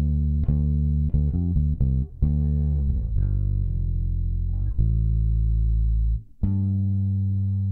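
Bass guitar strings being plucked: a quick run of notes in the first couple of seconds, then a few longer held notes, the last plucked about six and a half seconds in and left ringing.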